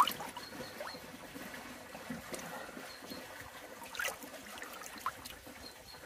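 Water splashing and sloshing in a shallow koi bowl as hands move and straighten a large koi. There is a sharp splash right at the start, and smaller splashes come about two, four and five seconds in.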